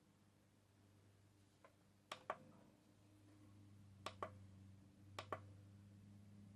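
Quiet button clicks on a digital alarm clock, each press and release giving a close pair of clicks, three pairs about a second apart, over a low steady hum.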